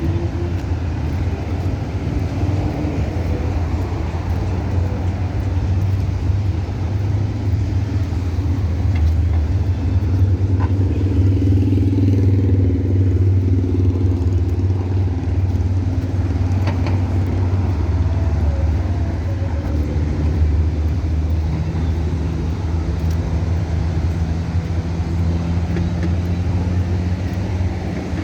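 Road traffic: a steady, loud low rumble of vehicle engines, with a further low hum joining about two-thirds of the way through.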